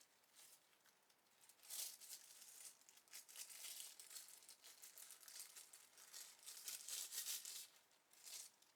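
Packaging being handled and opened, crinkling and rustling in irregular bursts, with a brief tearing sound about two seconds in.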